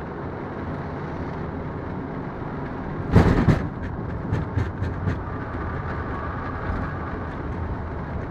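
Boeing 777 rolling down the runway just after touchdown, heard from the cockpit as a steady rumble of wheels and engines. A loud double thump comes about three seconds in, followed by a few light knocks.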